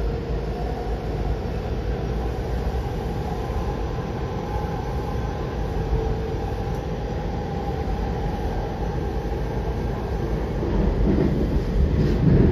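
Inside a Washington Metrorail Silver Line railcar: a steady low rumble with a faint hum, growing louder and rougher near the end.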